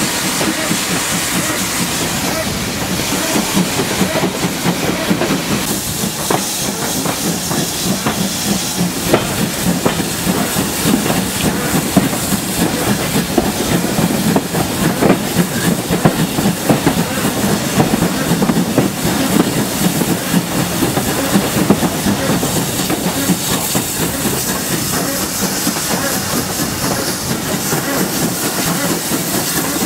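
GWR 5600-class 0-6-2T steam tank engine 5643 pulling away with its train, heard from the leading carriage: a steady hiss of steam with a clatter of wheels clicking over rail joints.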